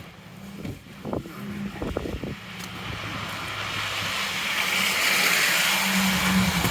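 A car approaching along the snowy street, its tyre hiss and engine hum swelling steadily louder over the last few seconds. A few short knocks sound near the start.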